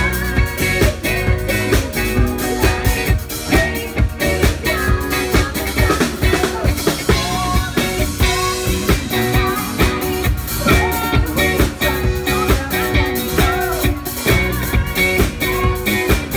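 Live pop-rock band playing over a steady drum beat with bass guitar and electric guitar, a woman singing lead through the PA.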